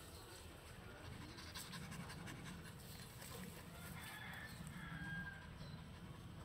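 Dog panting quietly.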